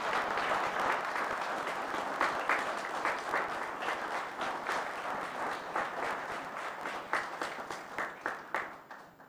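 Small audience applauding, the clapping thinning and dying away near the end.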